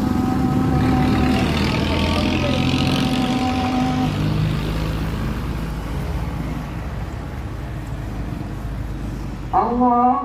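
A motor vehicle's engine running, with a rushing noise that swells and fades in the first few seconds as it passes. Near the end a pitched, music-like sound starts.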